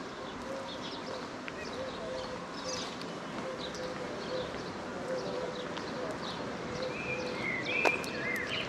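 Small birds chirping repeatedly, with louder arching calls near the end. A single sharp click sounds about eight seconds in.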